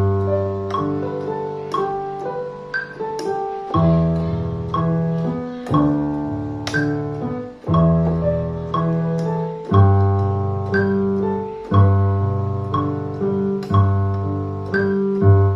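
Electronic keyboard playing a piano-like melody over sustained bass notes and chords, the harmony moving on roughly every second.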